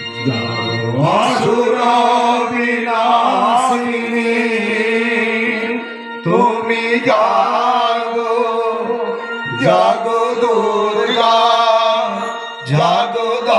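Devotional chanting sung in four long phrases, several opening with a rising swoop, over a steady held drone.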